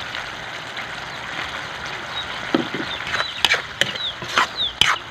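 Sardine and soy-sauce mixture sizzling in a wide aluminium wok as a steady hiss. From about three seconds in, a metal ladle stirs it, knocking and scraping against the wok several times.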